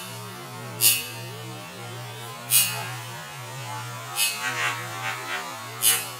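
A steady low electric hum with short, sharp hisses every second or two, and a quicker run of softer hisses in the second half.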